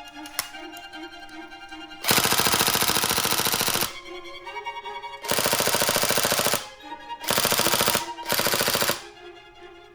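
Tokyo Marui MP5 airsoft gun firing on full auto in four bursts: a long one about two seconds in, another near the middle, and two short ones close together near the end. Music plays underneath.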